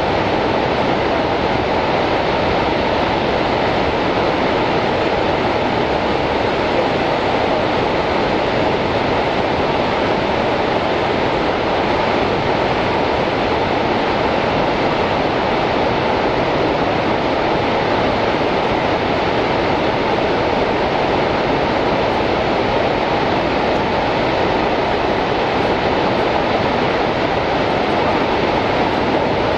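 The American Falls at Niagara: a loud, steady rush of falling water that never breaks or changes.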